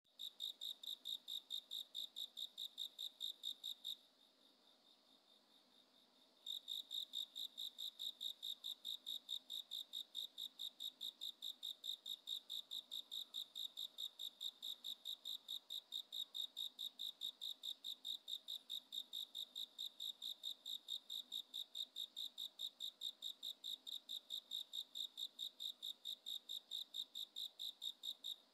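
Cricket chirping in a steady, even rhythm of about three high-pitched chirps a second. It pauses for a couple of seconds about four seconds in, then resumes.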